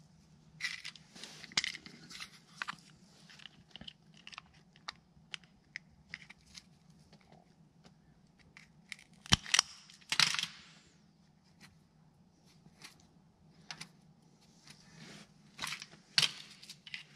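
Hands working a DEF dosing valve's wiring pigtail with a spring-loaded wire stripper: scattered clicks and crackles of wires and insulation being handled, loudest as a sharp snap about nine seconds in followed by a short crunch of insulation being stripped. A faint steady hum runs underneath.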